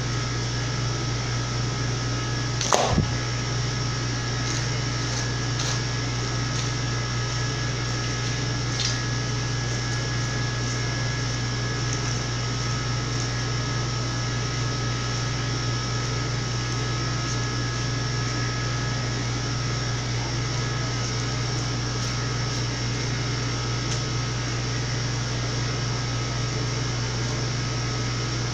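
Steady machine hum of room equipment, with a low drone and two thin steady whining tones above it. One sharp knock comes just under three seconds in, and a few faint ticks follow.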